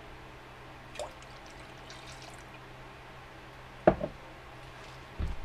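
Soy sauce poured from a glass measuring cup into a glass bowl of marinade, with a sharp knock about four seconds in as the cup comes down. A steady low hum runs underneath.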